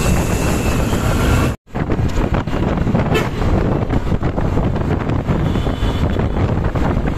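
Loud road-traffic noise from a passing vehicle's engine and tyres, with wind buffeting the microphone. The sound cuts out for an instant about one and a half seconds in, then carries on.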